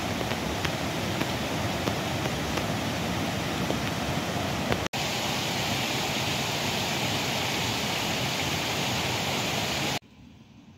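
Rocky woodland stream rushing and cascading over boulders, a steady dense rush of water. It breaks off for an instant about five seconds in, and near the end drops abruptly to a faint hush.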